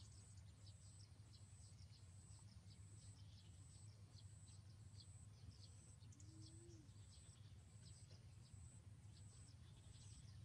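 Near silence: faint background with a steady low hum, a faint high-pitched tone that pulses a little more than once a second, and scattered faint chirps.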